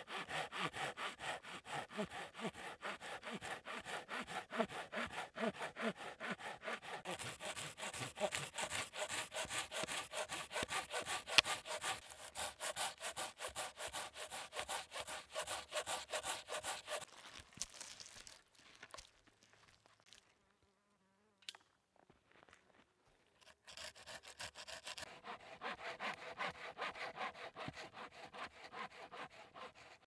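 Silky Gomboy 240 folding hand saw cutting through a log with quick, steady back-and-forth strokes. The strokes stop for a few seconds past the middle, then start again.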